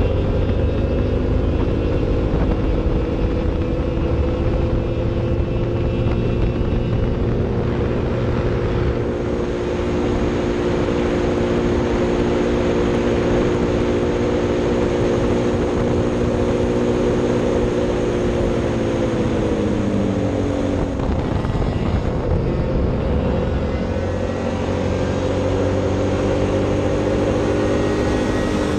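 Racing kart engine running at high revs down a straight, its note holding steady and then dropping away about two-thirds of the way through as the throttle is lifted, before picking back up and holding again near the end.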